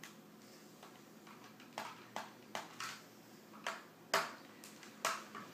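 Small screwdriver working the screws out of a laptop's plastic bottom cover: a run of light, irregular clicks and taps, the sharpest about four seconds in.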